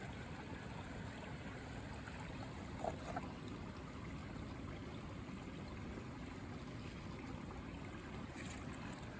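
Creek water running, a faint, steady wash, with a couple of small clicks about three seconds in.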